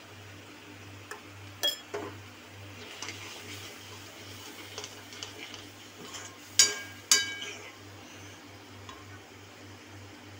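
Metal spoon stirring and scraping thick tomato masala in a metal kadhai, with a few clicks of the spoon on the pan and two loud ringing clinks just past the middle.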